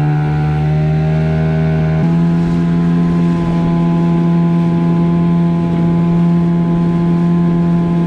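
Small outboard motor running at steady speed, pushing an inflatable dinghy along, with a slight rise in pitch about two seconds in.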